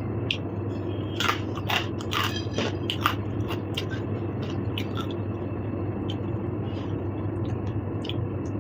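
A person chewing and biting food close to the microphone, with a cluster of crisp crunches in the first few seconds and softer chewing after, over a steady low hum.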